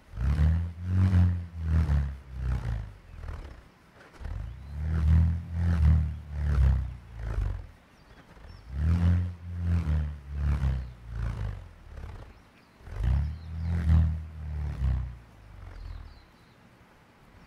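Purerehua, a Māori bullroarer with a rimu wood blade on nylon cord, whirled on a long handle: a deep throbbing roar with a whoosh on each pass, pulsing a little under twice a second. It comes in four spells of about three seconds with short lulls between and fades away near the end.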